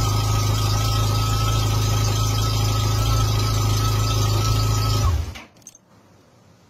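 Yamaha FJR1300's inline-four engine idling steadily, then cutting off abruptly about five seconds in. It is running after being started by bridging the starter relay's terminals with a spanner, which points to a faulty starter relay.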